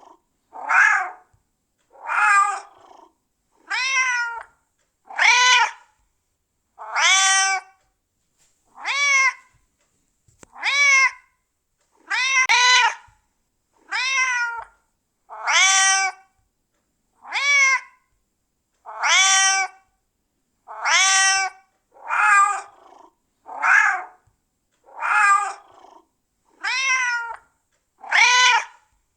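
A cat meowing over and over, about eighteen short meows spaced roughly a second and a half apart. Each is a clear pitched call that rises slightly and falls away, with silence between calls.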